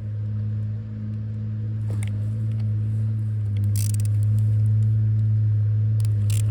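Steady low mechanical hum, with two short rasps of a ratchet wrench about halfway through and near the end as the rotator's Allen bolts are checked for tightness.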